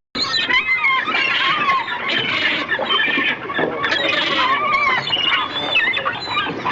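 Animal calls: many overlapping high squeals and squawks that bend up and down in pitch, filling the whole stretch.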